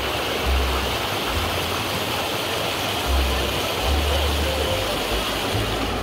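Mountain stream rushing over rocks: a steady loud hiss of running water, with intermittent low rumbles.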